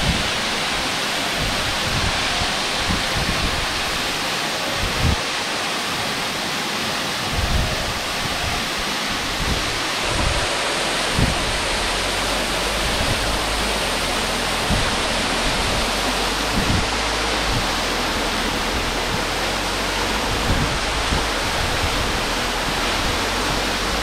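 Momoo Falls, a waterfall plunging onto rocks, heard close up: a loud, steady rush of falling and splashing water, with occasional low thumps.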